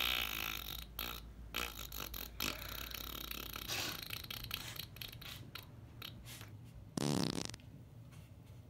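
A short, low fart about seven seconds in, after a few faint knocks and rustles.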